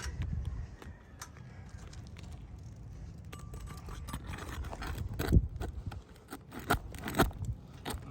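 Steel flat bar scraping and knocking against old asphalt shingles as a shingle is pried loose and its nails worked out. There are several sharp knocks, the loudest about five seconds in.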